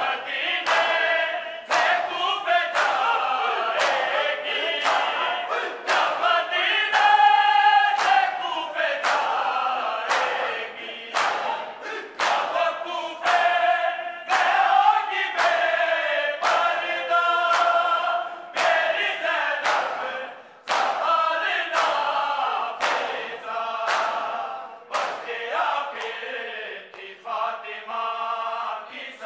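Noha chanted by a male lead reciter and a large chorus of men, over the steady beat of matam: the mourners slap their bare chests in unison, a regular beat of sharp slaps through the chanting.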